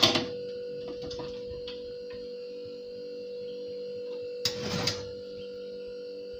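Oven door pulled open with a sharp metal clank, then the wire oven rack slid out with a short metallic scrape about four and a half seconds in, over a steady hum.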